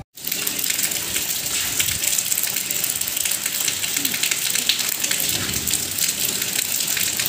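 Steady rain falling on concrete steps and puddled ground, an even hiss of drops throughout.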